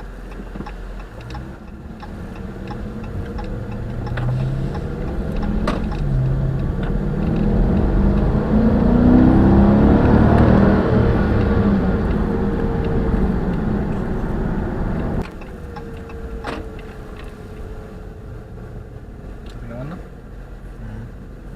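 2015 Dodge Charger R/T's 5.7-litre HEMI V8 pulling away and accelerating, its pitch rising and the sound growing louder, then dropping off suddenly about fifteen seconds in to a quieter, steady cruise.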